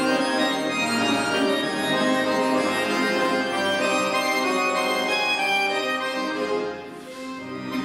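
Accordion trio of two bayans (button accordions) and a piano accordion playing sustained chords together. The music drops into a brief quieter gap near the end before the next phrase comes in.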